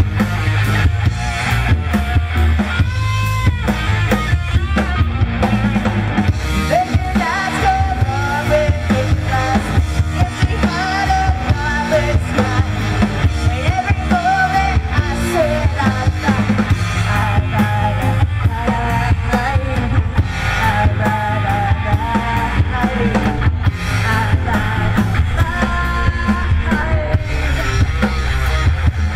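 Live rock band playing through a PA: electric guitar and a drum kit, with a woman's voice singing over the band for most of the stretch.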